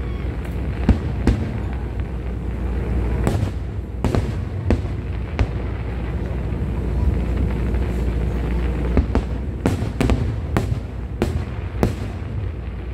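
Aerial fireworks bursting: sharp bangs at irregular intervals over a steady low rumble, coming closer together near the end.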